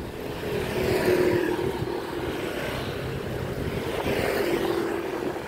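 Motor scooters passing close by on the street, their engine hum swelling as one goes by about a second in and another around four seconds.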